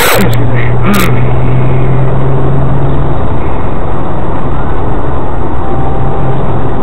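Cabin sound of a BMW 135i on the move: the 3.0-litre turbocharged straight-six's steady low drone over road and tyre noise. The engine tone fades after about three seconds and returns near the end; a short click comes at the start and another about a second in.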